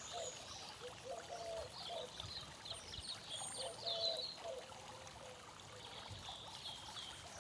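Garden fountain trickling steadily, with short faint bird notes over it.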